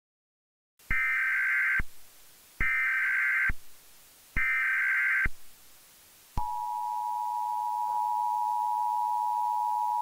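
Emergency Alert System broadcast tones: three bursts of shrill warbling digital data (the SAME header), about a second each, followed from about six seconds in by the steady two-tone EAS attention signal.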